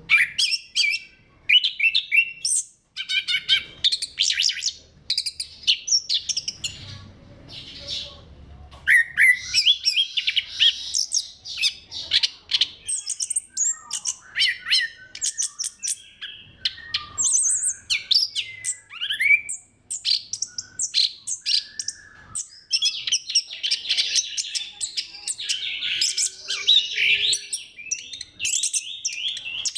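Orange-headed thrush singing in full voice: a fast, varied, near-continuous run of chirps, trills and short whistled glides.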